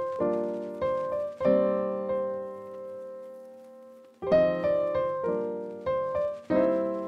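Background piano music: chords struck with sharp starts that fade away. One chord is left ringing for a couple of seconds midway, then the chords come quicker again.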